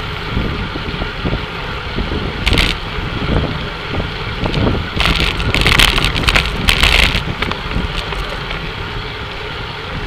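Wind buffeting the microphone and tyre and road noise from a racing bicycle riding inside a tight bunch of road cyclists, a steady rushing rumble. Several short, louder hissy bursts stand out around the middle.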